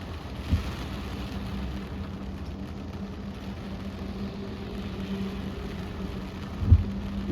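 Car idling with a steady low hum under an even hiss of rain on the car, with two dull low thumps, one about half a second in and one near the end.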